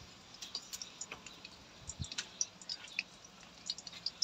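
Garlic pieces frying faintly in hot ghee in an aluminium wok, with scattered small crackles and a soft knock about two seconds in.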